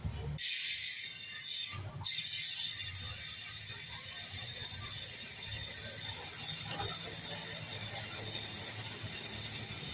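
GUB bicycle hub's freehub pawls ratcheting in a fast, continuous buzz of clicks as the wheel spins freely, with a short break about two seconds in.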